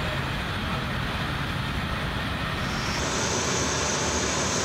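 Steady jet aircraft engine noise; a high whine joins about three seconds in.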